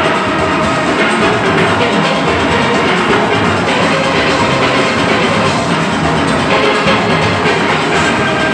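Full steel orchestra playing at a steady, loud level: many steelpans together, from the small tenor pans to the large bass pans.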